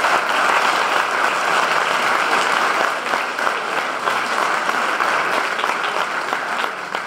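Audience applauding, a dense, steady clapping that begins to fade near the end.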